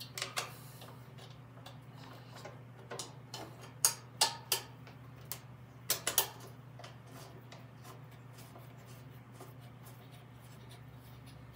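A string of sharp metal clicks and taps over about the first six seconds, as bolts are handled and started by hand into the metal transmission housing of a Snapper rear-engine mower, then only a steady low hum.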